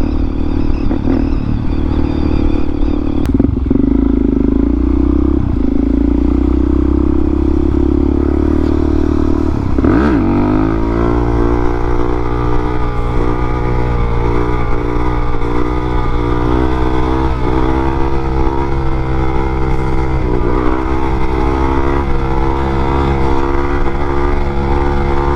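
Motorcycle engine running under way. Its note dips and sweeps about ten seconds in, like a gear change, then holds steady, with brief small dips later on.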